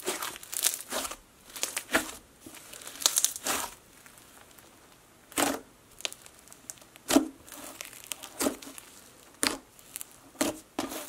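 Red snow fizz slime topped with Fimo slices being squeezed and pressed by hand, giving a sizzly crackling and crunching. The crackling is thick for the first few seconds, then comes as single squishy pops about once a second.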